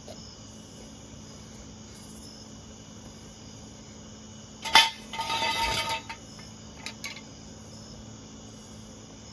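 Crickets chirping steadily. About halfway through comes a sharp clink, then about a second of clattering, with two light clicks shortly after.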